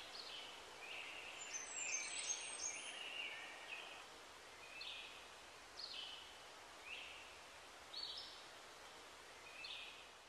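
Faint birds calling over a soft outdoor hiss: a cluster of short chirps in the first few seconds, then single short calls about once a second that fade away at the end.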